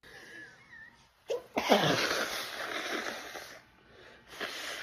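A woman sneezing during an allergic sneezing fit: a quick catch of breath about a second in, then a forceful sneeze whose breathy rush trails off over about two seconds, and another shorter breathy burst near the end.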